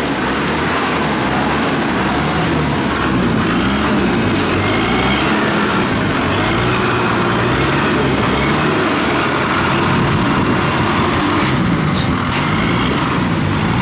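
Engines of a tracked rice-hauling carrier and Kubota DC-70 combine harvesters running steadily as they crawl through deep paddy mud. The engine pitch wavers up and down as they work under load.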